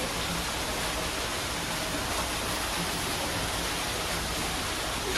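Small waterfall pouring steadily into an exhibit pool, a constant even rush of splashing water.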